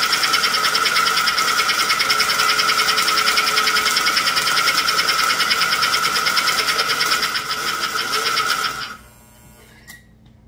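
Steady electric buzzing with a fast, even pulse, like a small motor or vibrating pump running, while smoke is being made. It cuts off about nine seconds in, followed by a faint click.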